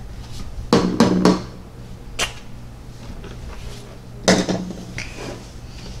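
Plastic toy food and dishes being handled: two short clattering knocks, one about a second in and one after about four seconds, with a sharp click in between.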